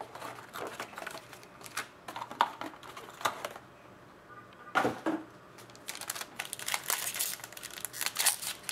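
Hands handling a cardboard card box and a foil-wrapped trading card pack: scattered clicks and rustles, a single knock about five seconds in, then denser crinkling of the foil wrapper as it is torn open near the end.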